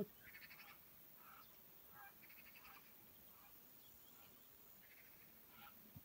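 Faint, distant birds giving short harsh cries, one after another at irregular intervals, with a quiet outdoor background between them.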